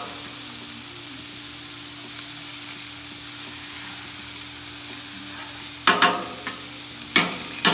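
Smash burger patties and hot dogs sizzling steadily on a Blackstone flat-top griddle. A few sharp clanks come about six seconds in and again near the end.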